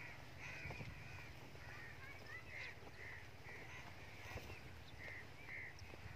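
Birds calling: a string of short, squeaky calls, a few each second, over a low steady rumble.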